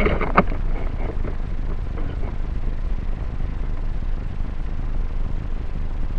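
Syma X5SC toy quadcopter with its motors stopped after coming down: a single knock just under half a second in as it lands, then a low steady rumble picked up by its onboard microphone, with a few faint ticks.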